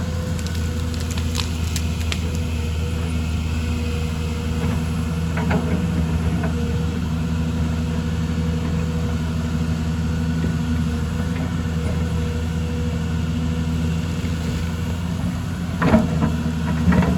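Excavator's diesel engine running at a steady speed, with a few faint knocks and clanks over it and a louder cluster of clanks near the end.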